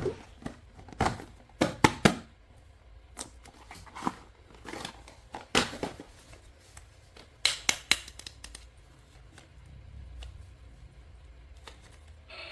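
Toy packaging being opened and handled by hand: irregular sharp clicks, snips and crinkles, a dozen or so spread over the stretch.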